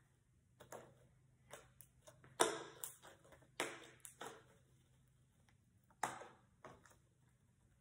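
Fluffy slime squelching and popping as it is squeezed and pulled in the hands, in irregular short bursts, the loudest about two and a half seconds in. About six seconds in it slaps down onto the floor.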